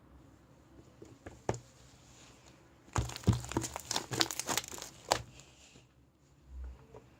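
Slime being worked by hand, crackling and popping: a single click about a second and a half in, then a dense two-second run of crackles and pops from about three seconds in.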